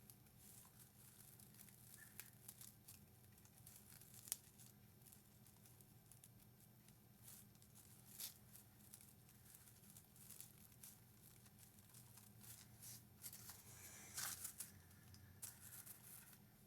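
Faint, scattered clicks and crackles of craft materials being handled, growing into a denser crinkling stretch near the end, over a low steady hum.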